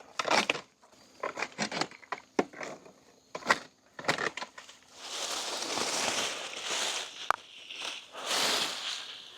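Pruning cutters snipping through mint stems tangled in vines: a string of short sharp snips and snaps, then a few seconds of leaves and stems crackling and rustling as the cut growth is pulled away.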